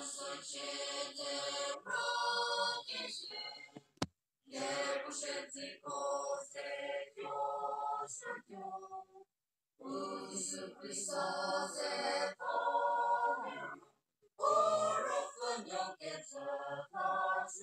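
Large mixed choir singing in phrases separated by short breaks, with a single sharp click about four seconds in.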